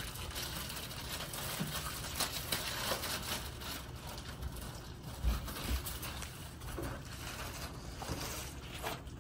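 Plastic wrapping rustling and crinkling, with cardboard and foam packing scraping and knocking as a boxed 3D-printer filament unit is lifted out and unwrapped; a couple of soft thumps about five seconds in.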